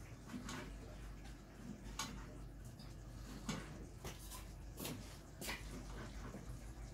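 Knife chopping tomatoes on a plastic cutting board: short, sharp knocks at irregular spacing, roughly one every second or so.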